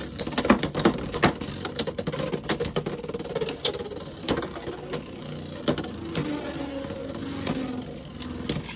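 Two Beyblade X spinning tops, Wyvern Gale and Drawn Dagger, whirring in a clear plastic stadium and clacking sharply again and again as they collide. The hits come thick and fast in the first few seconds and thin out toward the end.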